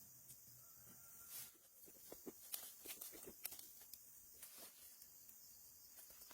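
Near silence: a faint steady hiss with scattered soft clicks and taps, a little busier in the middle.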